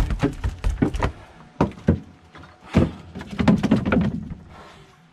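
Irregular knocks and thuds of a freshly landed coral trout flapping on a plastic cooler lid and being handled off it into a plastic tub.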